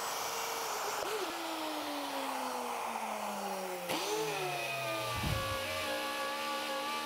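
Plunge router's motor winding down, its whine falling steadily in pitch over about four seconds, then running at a steady pitch again near the end, over a steady hiss.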